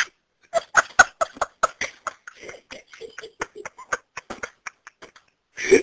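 A person's voice in short, choppy bursts, several a second, with silent gaps between them.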